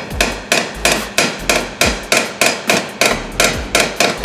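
A hammer strikes the bent metal fender mount at the front of a 2012 Porsche 911 Carrera in a steady run of about three blows a second, each with a short metallic ring. The blows are straightening the crash-bent mount so the hood and fender line up.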